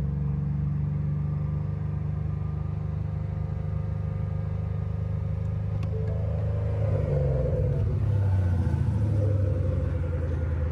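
2018 Ford Mustang GT's 5.0-litre V8 running steadily in neutral, held at a rev while the engine learns a freshly loaded E85 tune, heard inside the cabin. About seven seconds in, the engine note shifts and gets a little louder.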